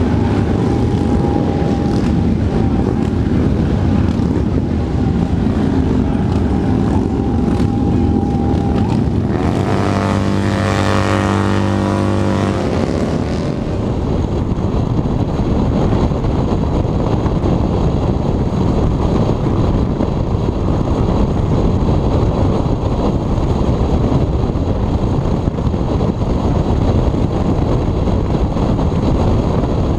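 Motorcycle engines running, then from about halfway through, wind rushing over the microphone along with the engine drone of a motorcycle at highway speed. About ten seconds in, a low, steady-pitched tone is held for about three seconds.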